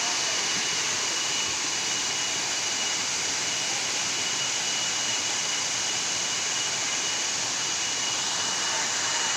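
Waterfall rushing in a steady, even roar of falling water, with a thin steady high tone running through it.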